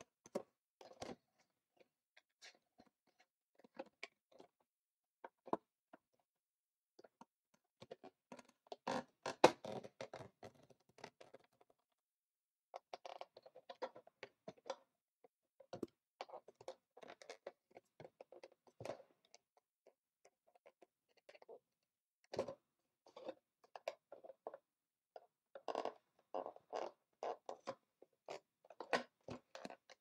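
Cardboard CPU retail box being handled while a thin metal tool is worked inside it to pull the inner case back: faint, irregular scraping, rubbing and small taps. There are denser runs of scraping and one sharper tap about a third of the way in.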